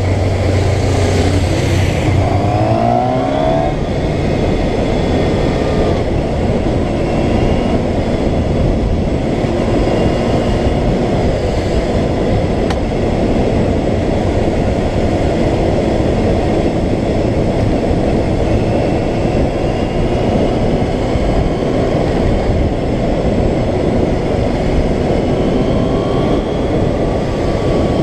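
Wind rushing over a helmet-mounted microphone at road speed, with a motorcycle engine running underneath. About two to three seconds in, the engine note rises as the bike accelerates.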